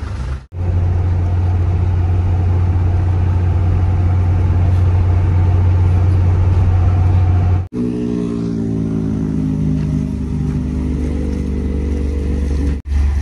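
Truck engine and road noise heard from inside the cab while cruising on a highway: a steady low drone. After a cut about eight seconds in, an engine runs with a steady humming tone that slowly sinks in pitch.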